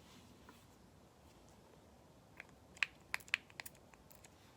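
A quick run of light clicks and taps from small perfume bottles and their caps being handled, starting about halfway through after a quiet stretch.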